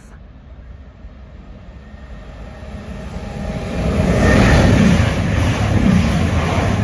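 Two coupled Class 220 Voyager diesel multiple units passing through a station at speed without stopping: the engine and wheel-on-rail noise swells over about two seconds and stays loud as the train runs close by.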